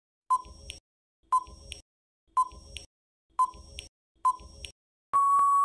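Countdown timer sound effect: five short beeps about a second apart, then a longer steady beep near the end.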